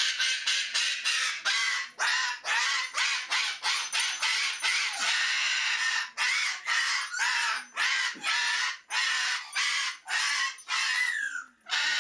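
Umbrella cockatoo freaking out, screaming over and over in harsh screeches about two to three a second without a break, with one longer, falling call near the end.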